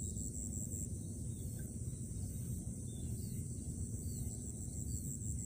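Rural waterside ambience: an insect, likely a cricket, keeps up a high-pitched trill, pulsing about five times a second before holding steady about a second in. Under it runs a low steady rumble, with a few faint bird chirps.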